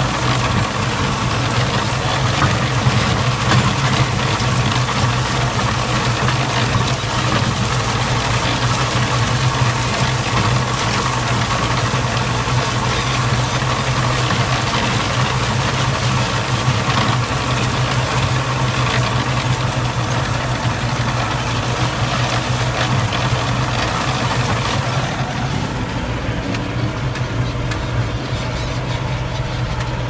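Massey Ferguson 397 tractor engine running steadily under load while it drives a rotary tiller, with a strong low hum and a dense rattle and noise over it. The higher noise thins out about 25 seconds in.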